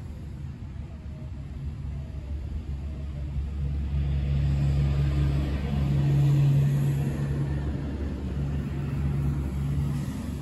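Low, steady hum of an engine running, growing louder about four seconds in and easing off again after about seven seconds.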